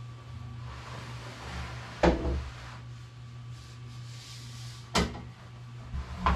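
Furniture being handled: three sharp knocks about 2 s in, about 5 s in and near the end, with sliding or scraping between them, like a drawer or bench parts being moved and set down. A steady low hum runs underneath.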